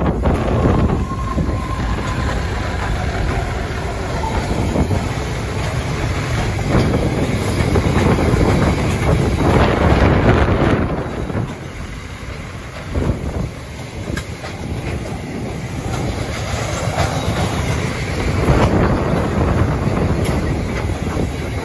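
A long diesel freight train passing close by. Its four diesel-electric locomotives, NR66 leading, go by in the first seconds, then a string of flat wagons loaded with steel coils rolls past with its wheels running over the rails. It is loudest at the start and again about ten seconds in.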